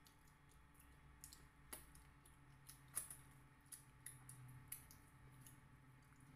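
Faint eating sounds from people eating fish and rice by hand: scattered small mouth clicks and smacks from chewing, the sharpest about three seconds in.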